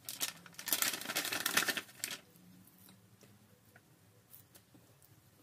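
Plastic marinade bag crinkling and rustling for the first two seconds or so, then a few faint soft clicks of the cutlets and basting brush being handled.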